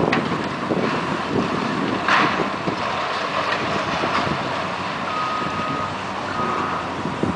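Demolition excavators tearing into a building's concrete and steel: a steady din of heavy machinery and falling debris, with a sharp crash about two seconds in. In the second half a vehicle's reversing beeper sounds in long, evenly repeated beeps.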